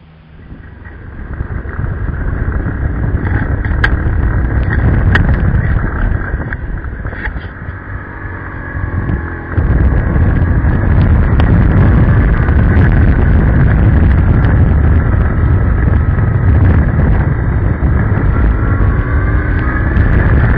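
BMW R1100RT motorcycle's boxer-twin engine pulling under way, heard from a helmet camera through heavy wind buffeting. The noise builds over the first couple of seconds, jumps louder about nine and a half seconds in, and the engine pitch rises and falls as it is ridden.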